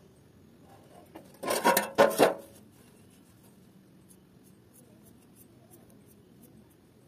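A quick run of loud metal scrapes and knocks, as a steel bar and a stainless pipe are shifted on a steel worktable, about a second and a half in, lasting about a second. Later, faint light ticks of a marker tip drawing lines on the pipe.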